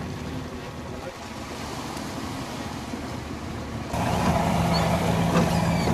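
Boat motor running steadily. About four seconds in, it jumps louder with a steadier hum, and a few short high bird chirps come through over it.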